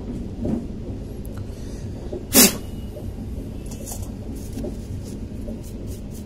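Bench handling noise from a laptop hard drive and its removed circuit board, with one sharp knock about two seconds in, over a steady low hum. Near the end come a few soft, scratchy strokes of a brush sweeping the board.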